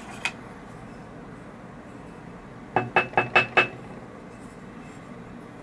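Stainless steel grounds container of a Porlex Mini hand grinder rapped five times in quick succession, each knock with a short metallic ring, knocking the ground coffee out onto a paper napkin.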